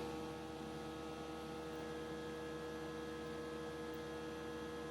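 A steady electrical hum, a couple of unchanging tones over a faint hiss, with no other sound standing out.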